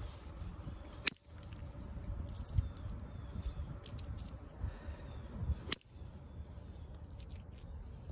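Handling sounds of a stone blade and a copper-tipped hammer held in the hands: small clinks over a low rumble, broken by two sharp clicks, about a second in and just before six seconds.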